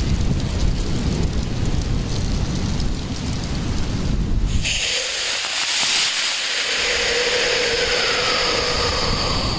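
Wind buffeting the microphone, then about four and a half seconds in a KNSB (potassium nitrate–sorbitol) rocket motor ignites in a static test and burns with a loud, harsh hiss for about five seconds. Inside the hiss are a steady tone and a higher one that slowly falls. It is strongest in its first second, then eases off, the thrust dying down as the motor burns.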